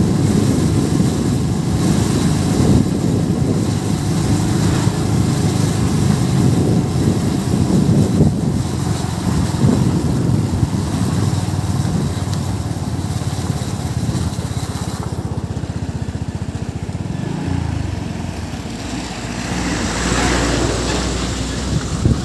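Motorcycle engine running steadily as it rides along.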